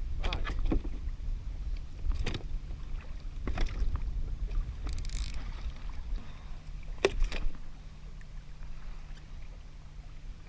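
Wind buffeting the microphone on a kayak at sea as a constant low rumble. A handful of sharp knocks and clunks come from the boat, the loudest about seven seconds in. A low steady hum joins in the second half.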